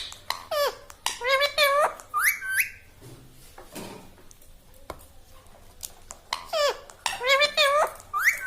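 Indian ringneck parrot talking in its mimicking voice: two runs of short, high, sliding syllables, one a second in and a similar one near the end, with a few soft clicks between.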